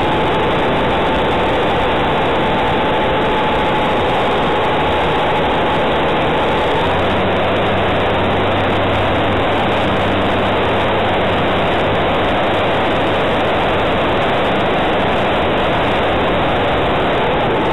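Model aeroplane's motor running steadily, heard from the onboard camera mixed with loud wind rush. Its pitch shifts slightly about seven seconds in, when a low hum joins it.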